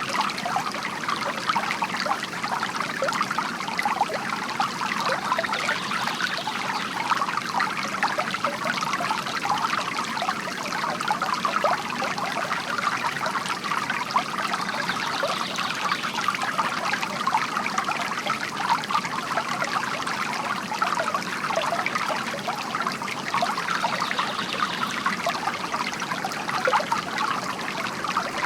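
Bamboo water fountain trickling and splashing steadily into water.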